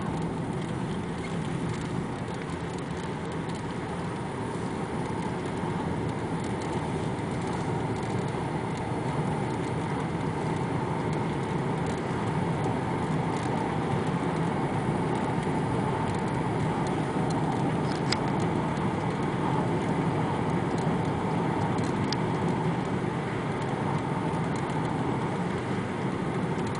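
Steady road and engine noise of a moving car, heard from inside the cabin: an even rush of tyres on tarmac that grows a little louder after about five seconds.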